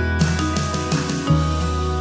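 Background music: plucked notes over a steady bass line.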